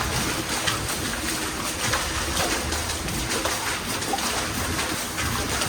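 Hurried footsteps through a tunnel under a steady hiss of noise, with irregular knocks of steps and movement.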